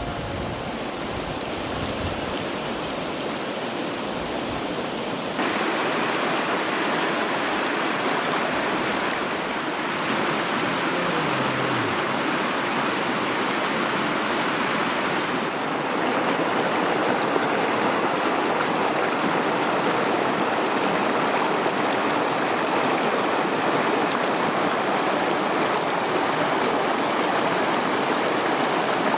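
Creek water rushing and babbling over rocks, a steady, even rush; it gets abruptly louder about five seconds in and again about fifteen seconds in.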